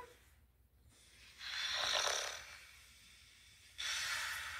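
A child making pretend snoring sounds with her breath: two long breathy breaths, the first swelling and fading, the second starting abruptly near the end.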